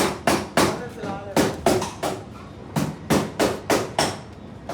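Repeated hammer blows, about three a second, in short runs separated by brief pauses.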